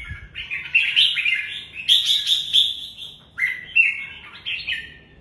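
Red-whiskered bulbul singing: three loud, quick warbled phrases of bright gliding notes with short pauses between them.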